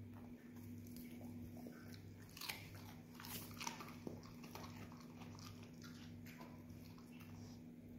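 Australian shepherd dogs crunching and chewing pieces of raw carrot. A run of crisp bites and crunches, loudest about halfway through.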